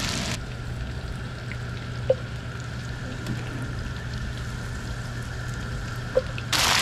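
Breaded fish fillets frying in hot oil in a cast iron skillet, sizzling with an even hiss. Just after the start the sizzle drops abruptly to a softer hiss over a steady low hum, broken twice by a short sharp sound, then comes back loud just before the end.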